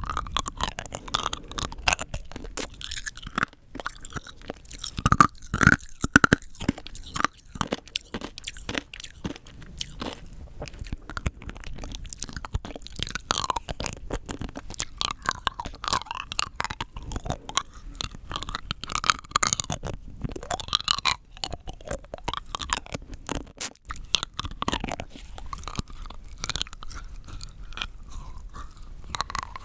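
Rock candy being bitten and chewed close to the microphone: a dense run of sharp, glassy crunches and cracks of hard sugar crystals, loudest about five to six seconds in.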